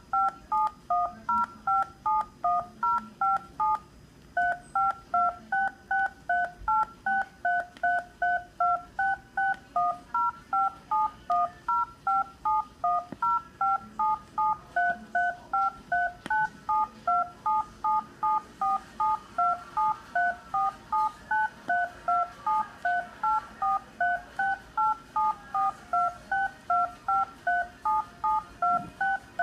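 DTMF telephone touch-tones played back from the DEF CON 23 badge, a yellow vinyl record, on a turntable. It is a long, steady run of short two-tone beeps, about two a second.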